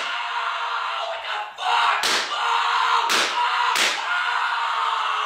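Three heavy slamming impacts, about two, three and nearly four seconds in, over a steady noisy background hiss.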